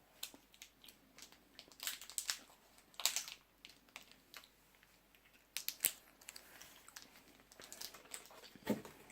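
Faint crinkling and rustling of a sweet packet in a few short bursts as a piece of chewing gum is broken off and handled.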